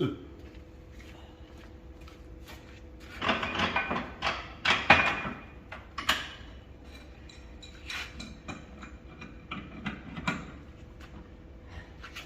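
Irregular clunks, knocks and scraping of steel parts being handled as a differential axle is set up for straightening, busiest a few seconds in, with a faint steady hum underneath.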